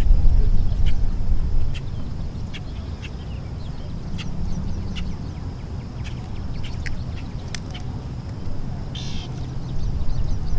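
Wind rumbling on the microphone, loudest in the first two seconds, over small scattered splashes and drips of water as a hooked carp is handled in a landing net in the shallows. A faint steady high tone runs underneath, and a short buzzy call sounds about nine seconds in.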